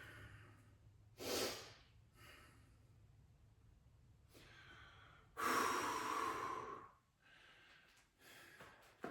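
A man breathing heavily after exertion, with a short hard exhale about a second in and a longer, louder sighing exhale about five seconds in.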